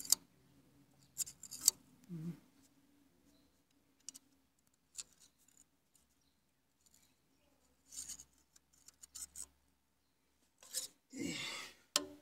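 Handling noise: short scrapes and clicks of the phone rubbing against a hand and forearm, with a longer rustling scrape about eleven seconds in.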